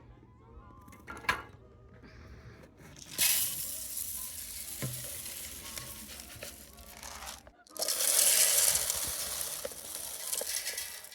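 Birdseed pouring and hissing into a bird feeder in two long pours, with a brief break between them.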